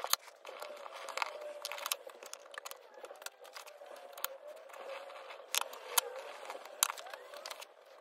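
Greeting cards and paper being handled on a tabletop: scattered sharp taps and clicks with light rustling and crinkling.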